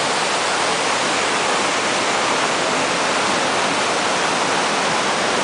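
Waterfall plunging onto rocks: a loud, steady rush of falling water with no change.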